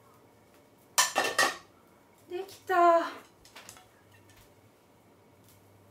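Stir-fried shrimp and broccoli being scraped from a frying pan onto a ceramic plate, with the pan and chopsticks clattering against the plate in a sharp burst about a second in. A brief wordless vocal sound follows shortly after.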